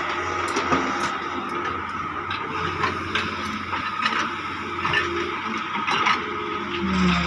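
Doosan DX140 wheeled excavator working: its diesel engine runs under load, with a steady whine and sharp knocks every second or so as the bucket dumps soil and digs. The engine note grows louder near the end.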